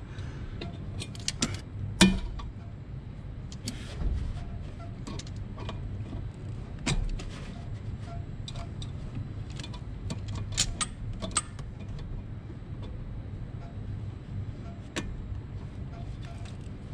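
Scattered metallic clicks and clinks of pliers on a spring hose clip and coolant hose fittings at an alloy header tank, with a sharp snap about two seconds in, over a steady low rumble.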